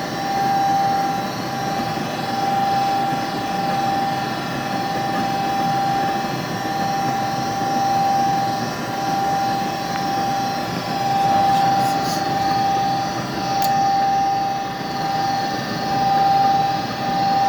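Gas furnace's draft inducer motor running with a steady whine over a fan hiss, its loudness swelling and falling slowly. The burners do not light because the pressure switch stays open.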